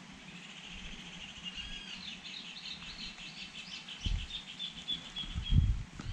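A bird singing one long, fast run of chattering notes, lasting about five seconds. Low rumbling thumps come in over the last two seconds.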